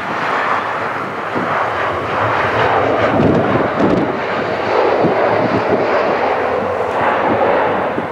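Jet engines of an easyJet Airbus A319 landing on a wet runway and rolling out: a steady rushing noise that grows louder about two and a half seconds in, with wind buffeting the microphone.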